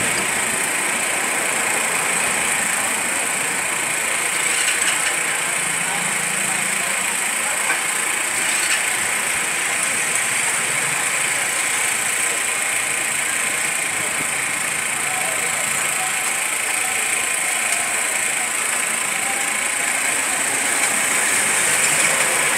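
Steady street noise: engines running and indistinct voices mixed into a constant hiss.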